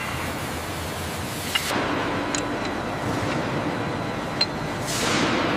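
Factory workshop ambience: a steady mechanical hiss and hum that swells louder about two seconds in and again near the end, with a few light metallic clinks.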